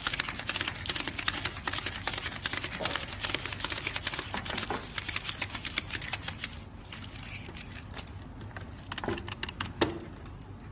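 Paper banknotes flicked one by one in fast hand-counting: a rapid run of crisp paper ticks that thins out and slows about two-thirds of the way through, with a couple of louder knocks near the end.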